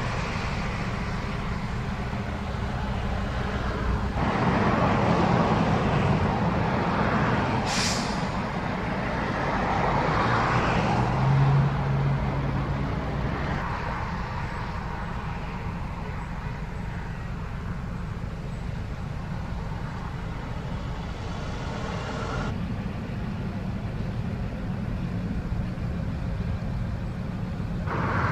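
Highway traffic going by: cars and pickup trucks towing horse trailers pass, their engine and tyre noise swelling and fading twice. There is a short hiss about eight seconds in and a low engine hum a few seconds later.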